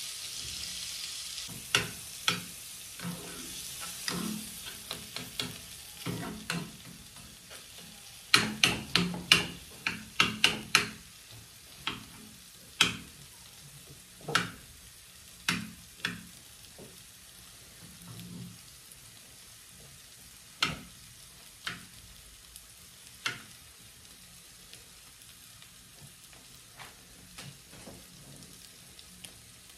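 A spoon stirring, scraping and clinking against a small pan of curd cheese, with a light sizzle that fades over the first several seconds. The sharpest clinks come in a quick run about eight to eleven seconds in, then occasional single taps.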